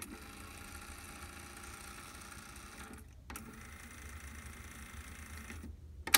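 Luxman K-111 cassette deck winding its tape at speed with a steady motor whir: fast-forward, a short pause and a click about three seconds in, then rewind. Sharp button-press clicks come at the start and near the end.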